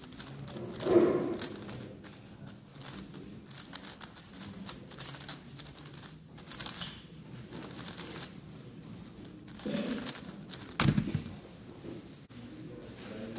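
A megaminx speedcube being turned fast by hand: a rapid, uneven stream of plastic clicks and clacks. About eleven seconds in, a sharp knock with a thud as the solved puzzle is put down on the mat and the timer is stopped.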